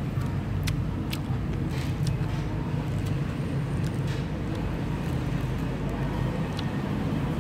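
Steady low hum of engine and road traffic, with a few faint clicks.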